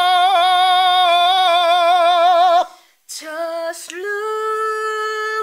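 A singer holds a high sung note with an even vibrato for about two and a half seconds, then cuts off. After a brief silence a voice sings a short phrase again and settles on a steady held note without vibrato.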